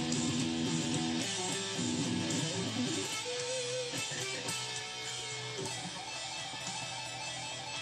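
Electric guitar played through a Roland Micro Cube amp over a backing track: busy playing at first, then a held note about three seconds in and slower, sustained notes.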